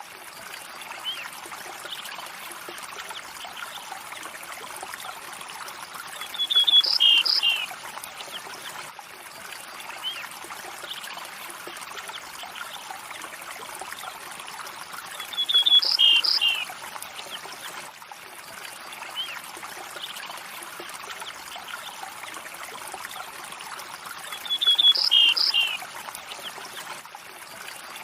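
River water flowing steadily with a constant rushing trickle. A short high call of a few quick notes stands out three times, about nine seconds apart, each time the same, over fainter scattered chirps.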